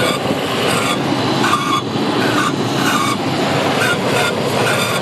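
2000 Toyota Land Cruiser running just after a cold start, with a loud screeching noise and short squeals recurring several times a second over the running engine. This cold-start screech, worse the colder it is, has no known cause.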